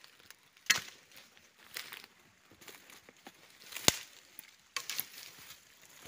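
Footsteps pushing through forest undergrowth, with leaf litter and vegetation rustling and crackling, and two sharp cracks: one under a second in and a louder one about four seconds in.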